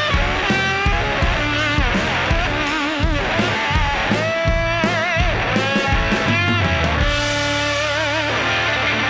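Rock music with a lead electric guitar playing bent notes with vibrato over a drum beat. The drums stop about seven seconds in, leaving a chord ringing on.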